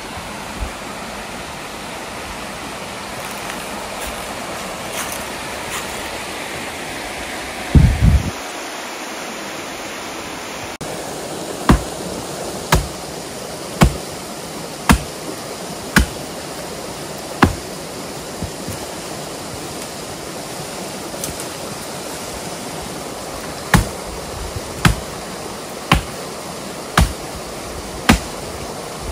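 Steady rushing noise with one heavy low thump about eight seconds in, then sharp knocks about once a second, in two runs with a pause between them.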